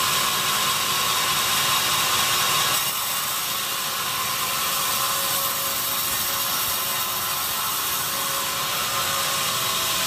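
Band sawmill running, its blade cutting into a teak log: a steady, loud hissing saw noise that eases slightly about three seconds in.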